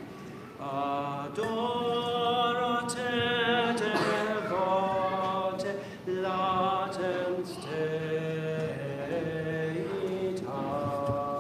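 Voices singing Latin chant, phrases of held notes broken by short pauses.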